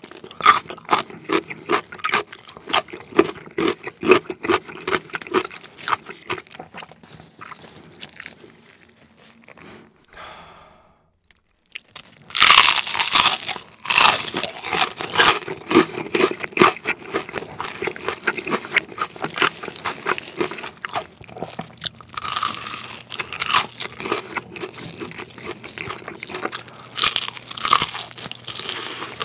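Close-up crunching and chewing of crisp glazed fried chicken, Kyochon Honey Combo. Steady chewing at first, a short pause about ten seconds in, then loud crisp bites and crunching through the rest, with the sharpest crunches about twelve, twenty-two and twenty-seven seconds in.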